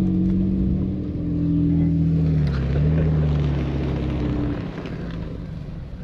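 Engine of an off-road 4x4 heard from inside the cab as it drives through snow: a steady drone that drops in pitch a couple of seconds in, then fades out about four and a half seconds in as the vehicle slows to a stop.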